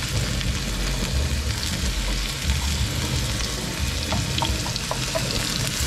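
Chopped onion sizzling in hot oil in a wok as it is shaken in from a plastic tub: a steady frying hiss.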